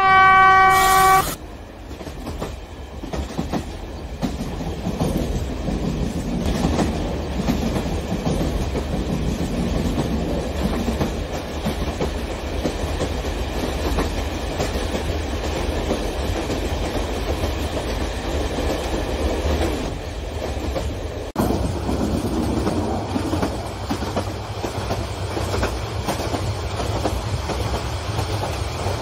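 A model train horn sounds once for about a second, then the model DF4D diesel locomotives and their passenger cars run past with a steady rumble and clickety-clack of wheels on the track.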